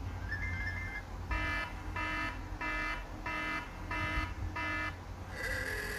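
iPhone 4S loudspeaker playing alert tones: a short two-note chime, then six evenly spaced electronic beeps, about two-thirds of a second apart, then another ringing tone starting near the end. The speaker sounds normally, a sign the freshly replaced volume flex assembly works.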